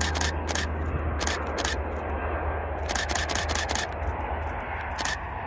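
Canon EOS 700D DSLR shutter and mirror clicking in short bursts of frames, the longest a quick run of about six clicks under a second long around three seconds in. A steady low rumble continues underneath.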